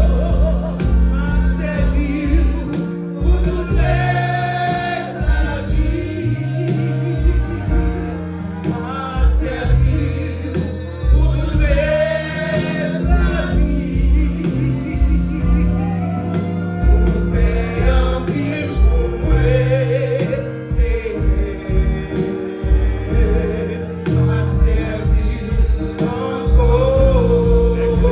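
Gospel song: voices singing over band accompaniment, with a bass line holding long, steady notes.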